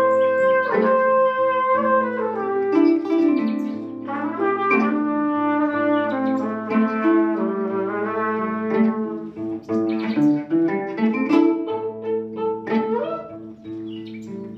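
Live kora and trumpet duet: the kora's strings are plucked in quick, ringing runs while the trumpet plays a gliding melody over a steady low drone.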